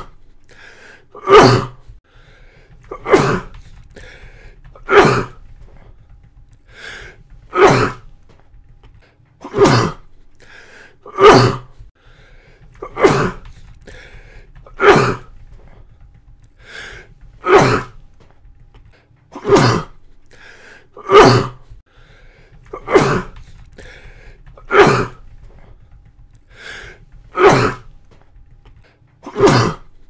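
A person coughing over and over: about fifteen short, sharp coughs, one roughly every two seconds, each with a quick breath in just before it.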